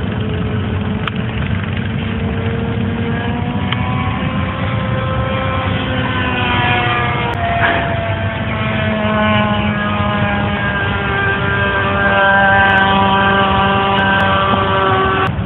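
Radio-controlled model airplane motor droning in flight overhead, its pitch sliding slowly up and down as it flies past and the throttle changes, over low wind rumble.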